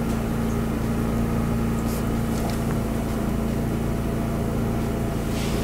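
Steady machine hum with a constant low tone, unchanging throughout, with a few faint clicks about two seconds in.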